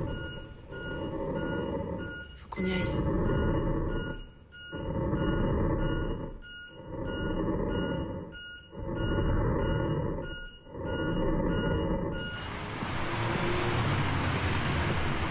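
Hospital patient monitor giving a steady run of short electronic beeps over a machine's rhythmic whoosh that swells and fades about every two seconds, like a ventilator breathing for a patient. About twelve seconds in it cuts to a steady roar of passing car traffic.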